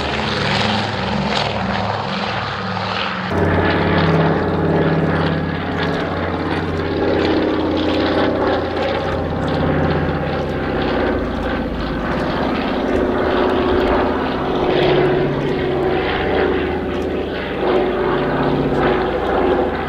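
A Consolidated PBY-5A Catalina's two Pratt & Whitney R-1830 Twin Wasp radial engines and propellers at takeoff power, a loud steady drone that pulses slowly as the aircraft rolls and climbs away.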